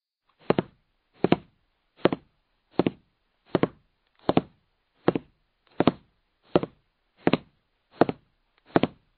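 Footsteps on a paved path at a steady walking pace, about one step every three-quarters of a second. Each step is a dull thud, often with a quick double tap, and there is dead silence between steps.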